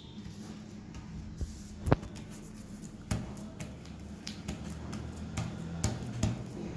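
Paper and craft materials being handled: irregular small clicks and rustles, with one sharp click about two seconds in, over a steady low hum.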